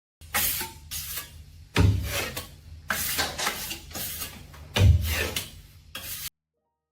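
Repeated scraping, rasping strokes, about one a second, with two heavier thuds, one about two seconds in and one near five seconds; the sound cuts off suddenly.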